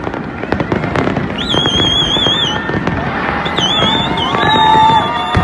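Fireworks display: many aerial shells bursting in quick succession, with bangs and crackling. A high warbling whistle sounds twice over the bursts.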